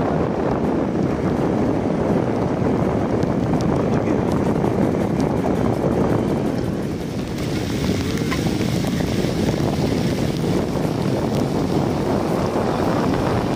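Steady wind rushing over a phone microphone on a moving vehicle, with road noise underneath.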